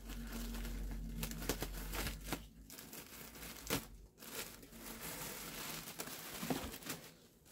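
Plastic wrapping crinkling and rustling in irregular crackles as hands rummage through a cardboard box and lift out plastic-wrapped food packs.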